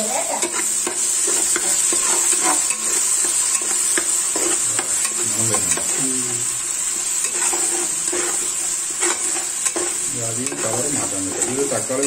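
Chopped ingredients and whole spices frying in hot oil in an aluminium pressure cooker, sizzling steadily, while a spatula stirs them and scrapes against the pot with frequent short ticks.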